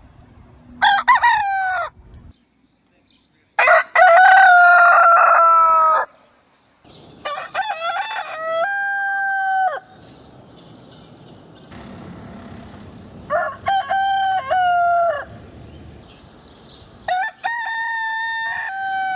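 Roosters crowing one after another: five cock-a-doodle-doo crows, each one to three seconds long with a falling end, the second crow the loudest and longest.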